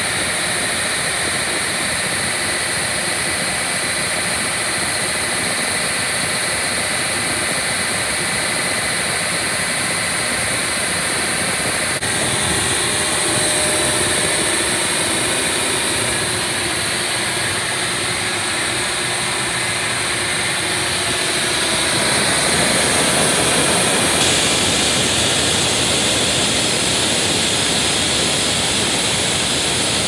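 Sawmill carriage band saw running as the log carriage moves a long debarked log: a steady, loud machine noise full of hiss, swelling slightly about two-thirds of the way through.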